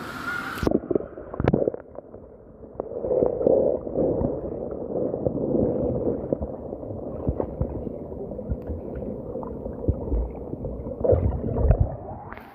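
Muffled gurgling and sloshing of water with scattered dull knocks, heard from underwater: all the high sound cuts off suddenly about a second in and comes back just before the end, as when the microphone goes under and surfaces again.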